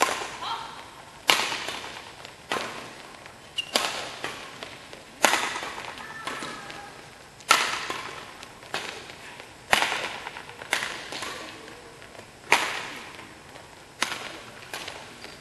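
Badminton rackets striking a shuttlecock again and again in a long doubles rally: a sharp smack about every second, each ringing briefly in the hall.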